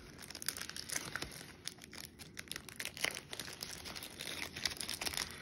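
Wrapper of a 1984 Donruss Action All-Stars baseball card pack crinkling and tearing as it is worked open by hand, an uneven run of small crackles and rips.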